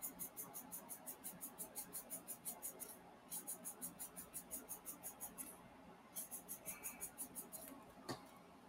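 3D printing pen's filament feed motor clicking faintly as it extrudes plastic, about seven ticks a second, in runs that stop and start again twice. A single sharp knock comes near the end.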